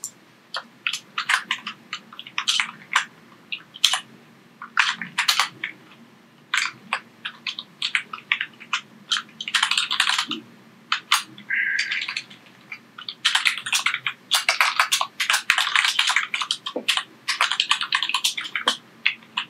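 Computer keyboard being typed on: irregular keystrokes in short runs, sparse at first and busier through the second half.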